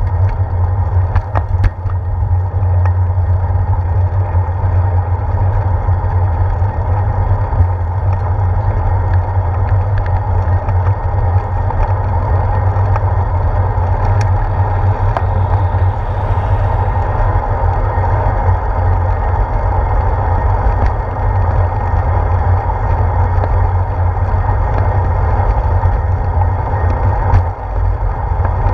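Bicycle riding on a paved path, heard through a handlebar-mounted GoPro Hero 4: a steady low rumble of wind and road vibration, with a few sharp knocks from bumps.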